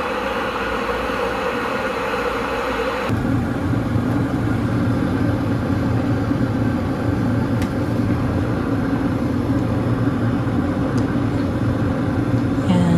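Small electric travel kettle heating water toward the boil: a steady rumbling hiss that turns deeper about three seconds in.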